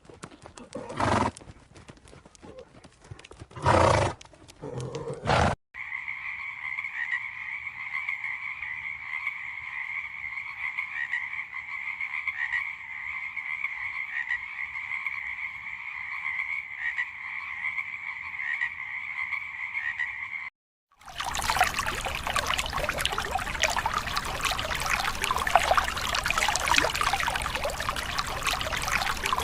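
A sequence of animal sound clips: first a couple of loud calls such as a horse neighing, then a long steady high-pitched trilling chorus like calling frogs, which cuts off about 20 seconds in, then a dense rushing hiss like running water.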